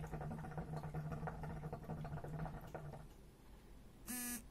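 Hookah water bubbling in the base as a long draw is pulled through the hose, a steady gurgling rattle that stops about three seconds in. Near the end, a phone gives two short buzzes as a message arrives.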